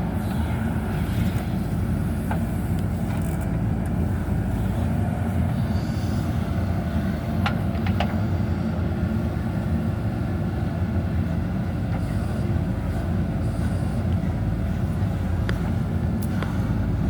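JCB backhoe loader's diesel engine running steadily as it works, with a few sharp clicks about halfway through and near the end.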